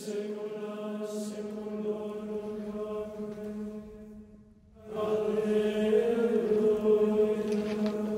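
Chant-like soundtrack music: a steady drone held on one low note, rich in overtones. It drops out for about a second around four seconds in and returns louder.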